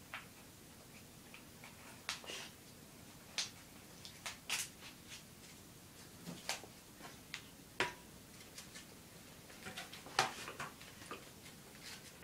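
Scattered light clicks and taps, about a dozen at irregular intervals and loudest a little after ten seconds in, from baking packets and utensils being handled over a steel mixing pot.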